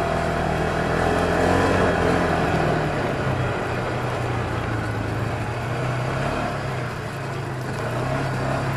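Off-road buggy engine running steadily as it drives along a dirt track, its pitch shifting a little about three seconds in.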